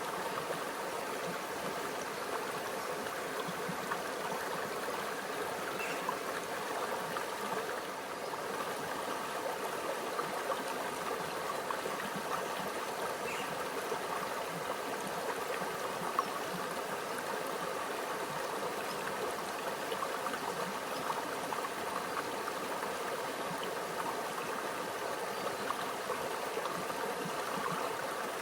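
A small stream running and trickling over rocks, a steady, even babble of water with small gurgles throughout.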